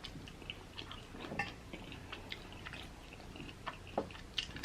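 A person chewing a crispy lemon pepper fried chicken wing close to the microphone: soft, scattered crunches and mouth clicks.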